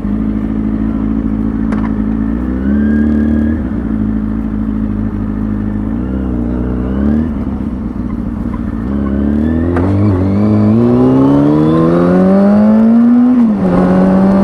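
2003 Kawasaki ZX-6R 636's inline-four engine running as the bike pulls away, with a few short throttle blips, then revving up steadily for about three seconds near the end before the pitch drops suddenly at an upshift.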